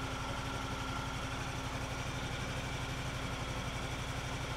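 2020 Honda Talon's turbocharged 999 cc parallel-twin engine idling steadily, heard at the muffler outlet.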